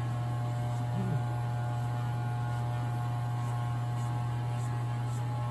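Electric hair clippers with a guard running steadily with a low, even hum while cutting hair.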